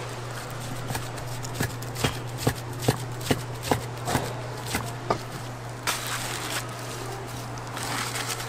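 A knife chopping on a cutting board: a run of sharp, even knocks, about two or three a second, over a low steady hum.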